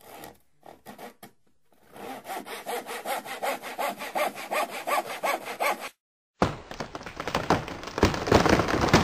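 Hand saw cutting wood: a few uneven first strokes, then steady back-and-forth strokes at about four a second that stop suddenly. After a brief gap a louder, crackling noise begins.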